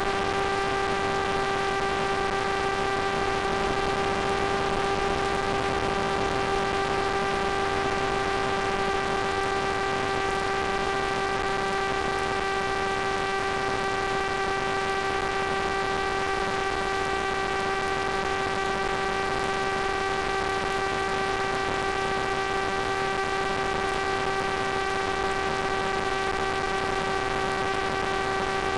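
Steady electrical buzz at one unchanging pitch with overtones, over a constant hiss. This is noise on the audio channel of the analog FPV video link, as recorded by the ground-station DVR.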